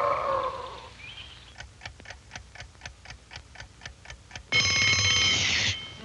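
Wind-up alarm clock ticking quickly, about five ticks a second, then its bell ringing loudly for about a second before cutting off.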